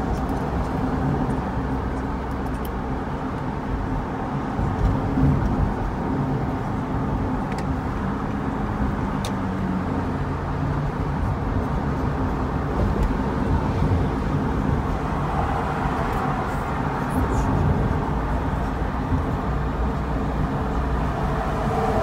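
Steady road and engine rumble heard from inside a car cruising on a multi-lane road.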